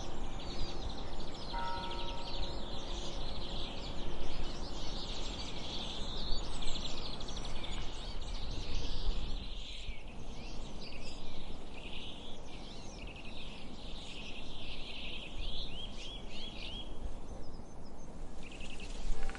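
Many small birds chirping and singing in a dense chorus, with a church bell ringing in the first few seconds: struck again about a second and a half in, then fading away. A low steady background noise runs underneath, and the bell strikes once more right at the end.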